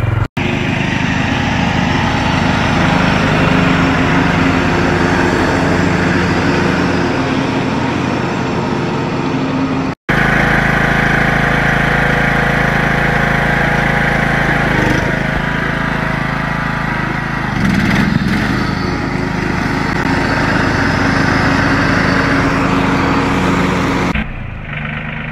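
Small gasoline engines running steadily across short back-to-back clips; from about ten seconds in, it is a John Deere riding lawn mower's engine running as the mower is driven. The sound cuts out briefly twice between clips, and the level drops near the end.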